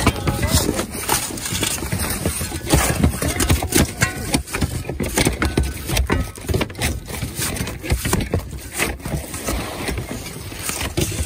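Hand tools tearing old asphalt shingles off a plywood roof deck: shingle-removal shovels, pry bars and hammers scraping, prying and knocking against shingles, nails and wood. The knocks and scrapes come in a rapid, irregular string.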